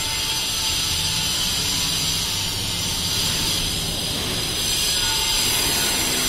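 Steady construction-site machinery noise: a loud, continuous high hiss with no break.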